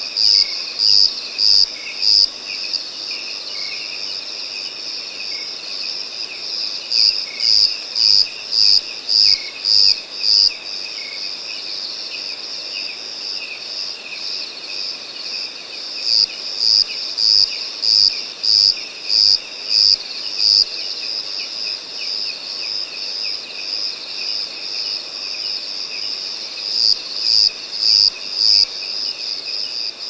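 Night chorus of crickets and other insects with a steady high trill. Over it, one louder insect chirps about twice a second in bouts of a few seconds, four times.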